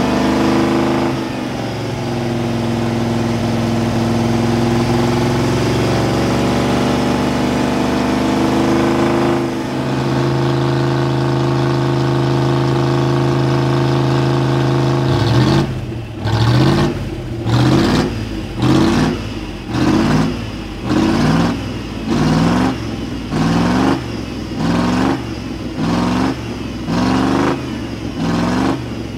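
Engine of a GAZ-66 off-road trial truck working hard under load in deep mud, running loud and steady at high revs. About halfway through it changes to rhythmic revving, rising and falling about once a second, as the stuck truck is rocked.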